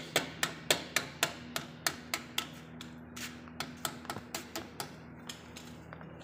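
A hand tool working on the motorcycle's exhaust header fittings, making a run of sharp metallic clicks, about three a second and unevenly spaced, over a low steady hum.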